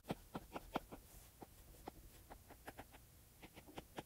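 Faint, irregular ticks of a stylus tip striking a tablet's glass screen, a few a second, as quick hatching strokes are drawn.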